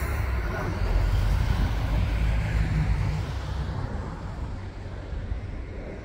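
Jet airliner passing overhead: a low engine rumble that fades away over the last few seconds.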